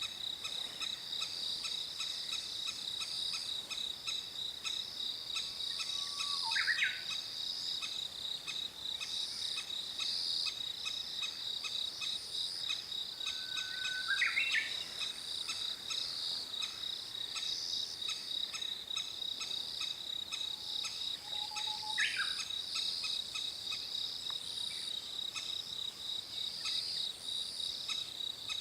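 Steady high insect chorus, with a crested kingfisher calling three times, each call a short held note followed by a quick sharp sweep. The adult is calling to coax its nearly fledged chicks to the nest-hole entrance for feeding.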